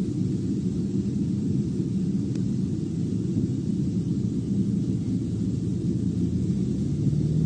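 A steady low rumble with no sudden events.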